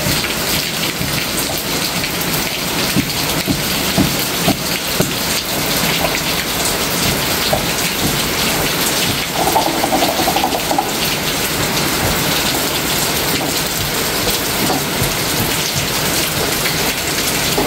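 Steady heavy rain falling, a dense even hiss with the patter of many drops striking a surface.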